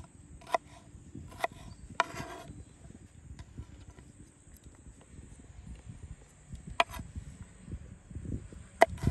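About five sharp clinks spaced unevenly, the kind made by cooking utensils being knocked together or set down, each ringing briefly. Under them runs a steady high insect buzz.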